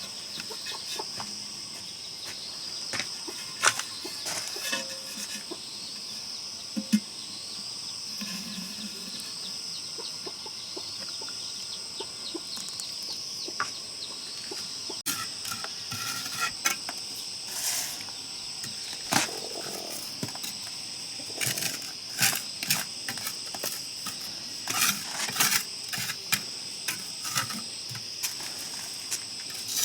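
Insects chirring steadily at a high, even pitch, with scattered sharp taps and knocks that come more often in the second half.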